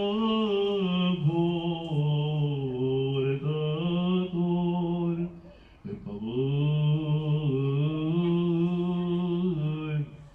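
Male voice chanting an Orthodox liturgical hymn in long, slowly gliding held notes, breaking off for about a second near the middle and again at the end.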